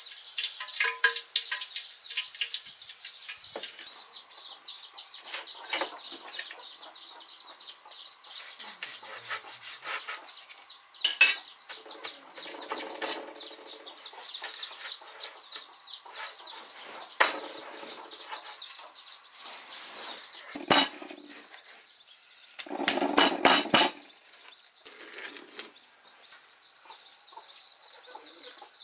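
Hot oil sizzling with a fine, dense crackle, while a knife cuts through crispy fried pork belly on a cutting board, giving a few sharp knocks and crunches. Chickens cluck in the background.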